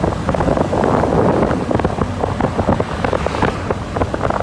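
Wind buffeting the microphone on a moving motorbike: a loud, rough rush in uneven gusts over a steady low rumble of the ride.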